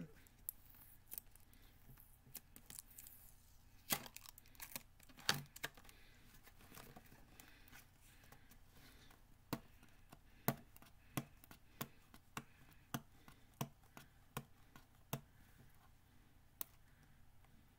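Cardboard retail box being picked open by hand: faint tearing and crinkling of card and packaging, with scattered sharp clicks and taps. In the second half the clicks come in a fairly even run, about one every half second.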